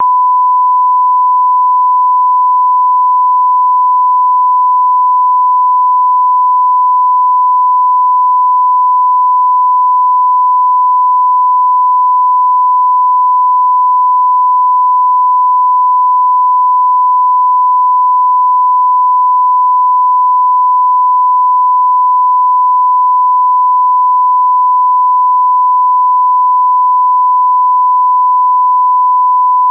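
Broadcast line-up test tone: a single steady 1 kHz beep held at one unchanging pitch. It is the reference tone that goes with colour bars, used to set audio levels.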